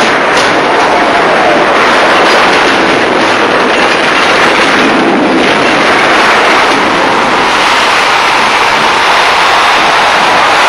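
A large arena crowd cheering in one continuous, dense roar, with a last sharp knock or two right at the start.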